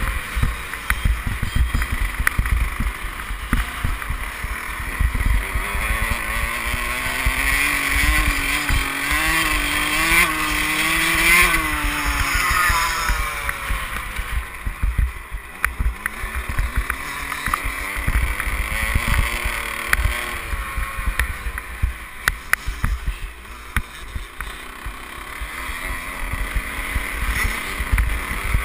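Motocross bike engine running hard on a dirt track, heard from on board: the revs climb for several seconds, drop sharply about twelve seconds in, then rise and fall again with the throttle. A constant low buffeting and thudding from wind and bumps on the microphone runs underneath.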